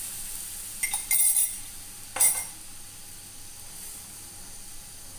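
Milk and cornflour mixture sizzling in a hot frying pan, the sizzle growing fainter as the milk takes up the heat. Sharp clinks of utensils against the pan about a second in and again a little after two seconds are the loudest sounds.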